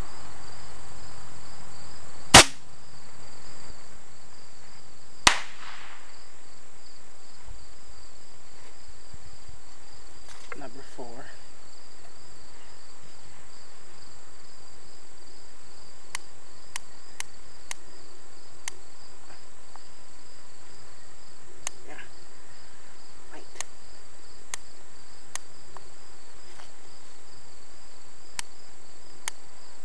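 Crickets chirping steadily, broken by two sharp, loud pops about three seconds apart near the start. Faint clicks follow about once a second in the second half.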